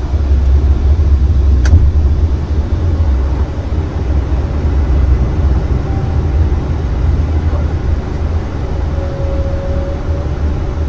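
Airbus A330-300 landing gear down on approach: a loud, steady low rumble of air over the lowered gear, heard inside the cockpit. A single sharp click comes a little under two seconds in.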